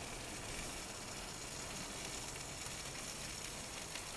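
Steady sizzling of a thick strip steak searing in a cast iron pan inside a gas-fired pizza oven. A faint click near the end.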